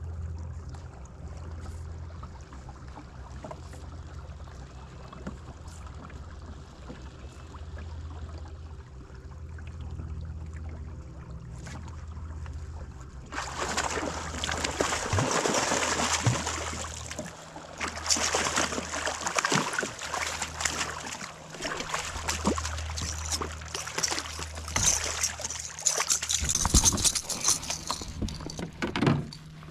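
Low hum, then from about halfway in loud splashing and clattering as a striped bass is landed at the side of a kayak.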